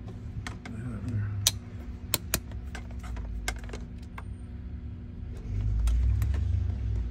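Irregular sharp clicks and taps of hands handling multimeter test leads and probes against battery posts and wiring, with a louder low rumble of the phone being moved about a second and a half before the end.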